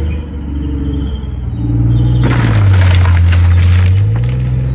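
Background music, then from about two seconds in a Chieftain tank breaking through a tree: a sudden, continuing crackle of branches snapping and splintering over a low running engine.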